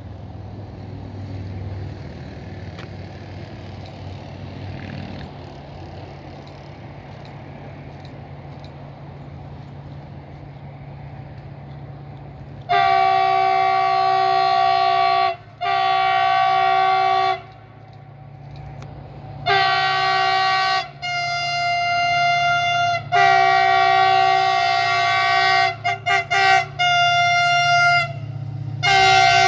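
FGC 254 series locomotive hauling a potash freight train, sounding a multi-tone horn at length. A steady low rumble of the approaching train comes first. From about 13 s in there are two long horn blasts, then a longer run of blasts whose chord shifts partway, a few short toots, and a last blast that starts just before the end.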